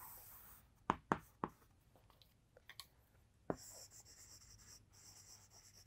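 Chalk writing on a chalkboard: a few light taps of the chalk against the board, then faint, high-pitched scratching of chalk strokes from about three and a half seconds in.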